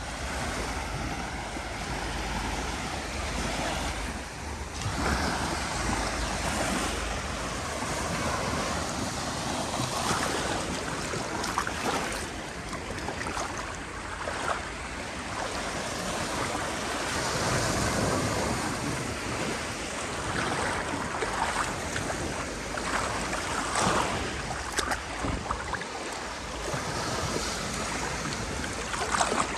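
Sea surf: waves breaking and washing onto the shore in a continuous hiss that swells and ebbs every few seconds, with a low rumble and wind.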